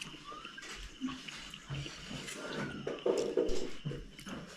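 Close-miked eating sounds: irregular chewing and lip smacks with scattered small clicks.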